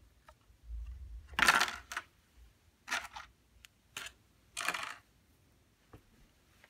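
Clear plastic clamshell packaging being handled and put down: several short bursts of plastic rustling and clatter with a few clicks, the loudest about a second and a half in.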